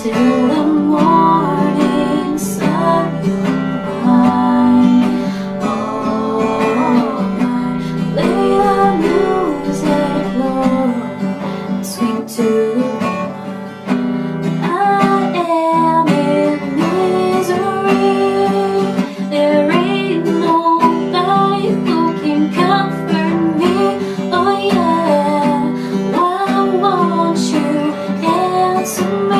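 Acoustic guitar strumming a four-chord pop progression, with a wavering melody line carried over the chords.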